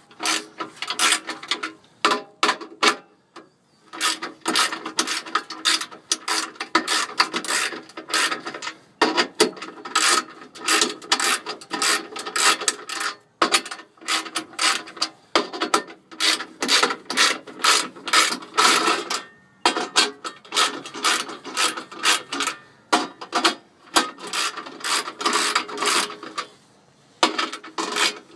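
Socket ratchet clicking in rapid runs with short pauses, backing out 15 mm bolts.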